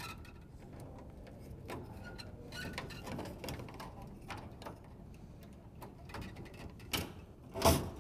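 Light clicks and taps of a screwdriver and coil springs against the plastic door of a Vollrath LidSaver lid dispenser as the door springs are hooked back on, with a sharper snap near the end.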